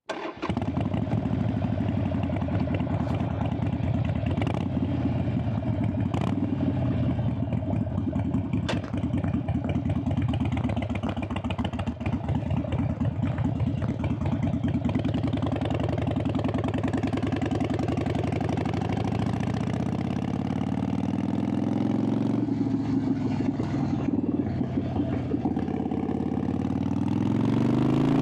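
Harley-Davidson Sportster 883's air-cooled V-twin starts up and idles steadily. About twenty seconds in it revs up as the bike pulls away, drops briefly at a gear change, then climbs in pitch again.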